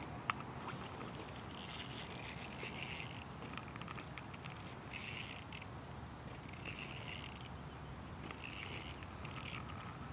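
Small ice-fishing spinning reel cranked in about five short spurts, its gears giving a high, even whir each time as a hooked fish is reeled up through the hole.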